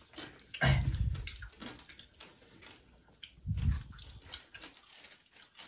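Men eating crab curry with their hands make short wordless mouth and throat sounds, twice: once about a second in and again about three and a half seconds in, with faint smacking between.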